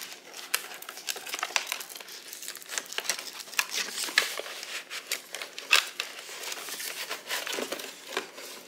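Packaging crinkling and rustling in irregular crackles as a boxed table lamp is unwrapped by hand.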